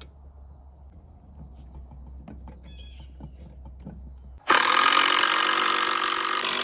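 Faint clicks and light handling noises with a bird chirping. About four and a half seconds in, a loud motor starts abruptly and runs steadily with an even buzz.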